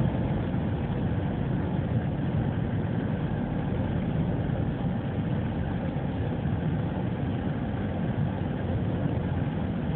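Steady road and engine noise inside a moving car's cabin: an even low rumble.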